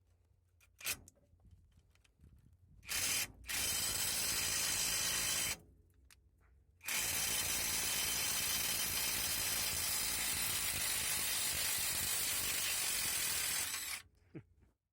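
AutoJare B1803 brushless cordless half-inch impact wrench hammering: a short blip, a run of about two seconds, then a long run of about seven seconds that cuts off near the end.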